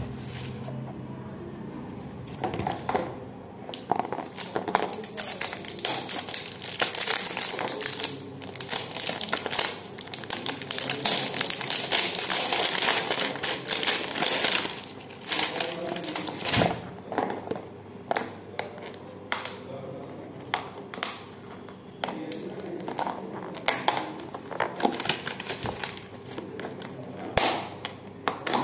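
Clear plastic wrap and paper packaging crinkling and rustling as a box is unwrapped by hand, with scattered clicks and taps as it is handled. The crinkling is thickest about halfway through.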